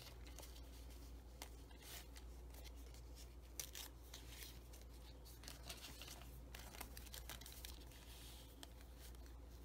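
Faint rustling, sliding and soft tapping of paper as cut-out picture cards are shifted and laid on a paper journal page, with a low steady hum underneath.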